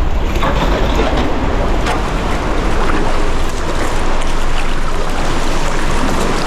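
Sea water washing and wind rushing over the microphone, a steady loud rush.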